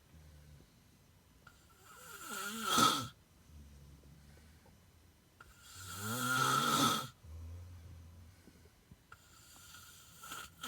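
A person snoring: two long, loud snores about four seconds apart, with softer breathing between and a third snore building near the end.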